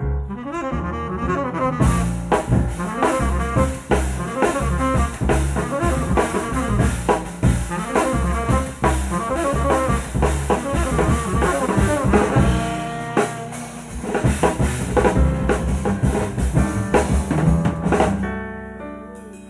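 Live jazz quartet playing: tenor saxophone lines over piano, double bass and drum kit. The drums and cymbals come in strongly about two seconds in. Near the end the drums and sax drop away, leaving quieter piano and bass.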